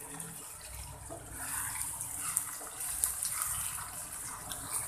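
Sliced onions, tomato and peanuts sizzling in hot oil in a kadai as a wooden spatula stirs through them: a steady hiss with faint scrapes of the spatula.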